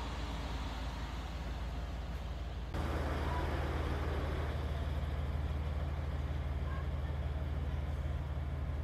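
An engine running steadily at idle, a low even hum over a wash of background noise. About three seconds in it jumps to a louder, deeper hum that then holds steady.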